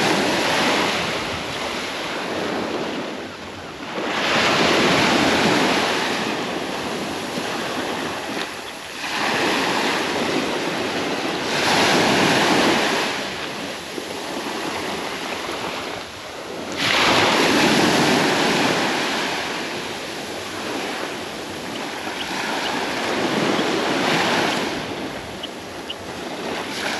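Surf breaking and washing up a sandy beach, swelling and falling away every few seconds.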